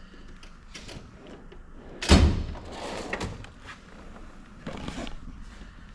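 A steel toolbox drawer is shut with a heavy thud about two seconds in. The clatter of a drawer sliding on its runners follows, then a few lighter knocks.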